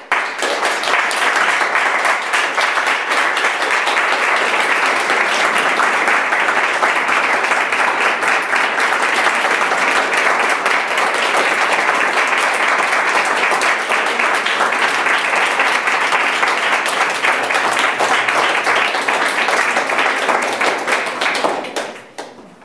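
Audience applauding, starting suddenly, keeping up steadily and dying away near the end.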